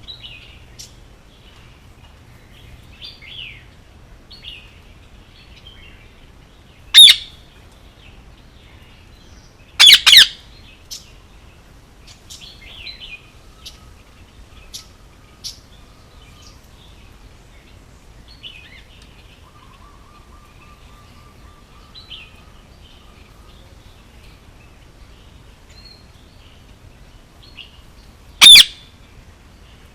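Male Indian ringneck parakeet giving short, very loud, shrill screeches: one about seven seconds in, a quick double about ten seconds in, and one near the end, with soft high chirps in between.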